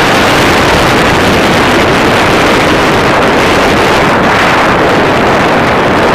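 Loud, steady wind rushing over the microphone of a moving vehicle on the road.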